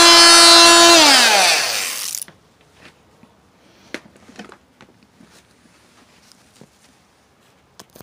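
Budget oscillating multi-tool with a metal-wood combination blade running at a steady high pitch, then switched off: about a second in its whine falls in pitch as the motor winds down, stopping about two seconds in. Faint taps and knocks follow.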